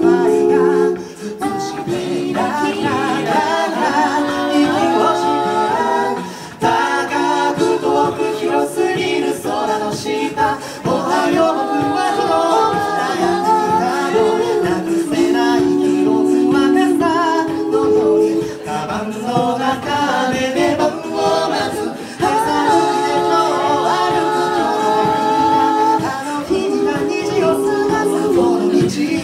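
Six-voice a cappella group singing through microphones: a lead voice over sustained chorus harmonies and a bass vocalist, with beatboxed vocal percussion keeping the beat.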